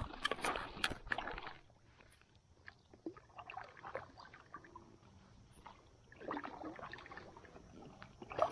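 Water splashing and knocking around a kayak in several irregular spells, as a hooked fish is brought in at the surface beside the boat.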